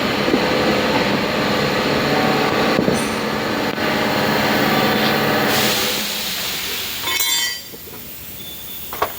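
Heavy vehicle running with a steady rumble and hum; it eases off about six seconds in and drops away abruptly after a short rattle at about seven and a half seconds.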